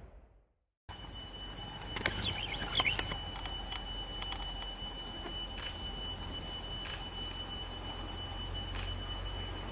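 After about a second of silence, a steady high-pitched insect drone of the forest, with a low rumble underneath and a few short chirps about two to three seconds in.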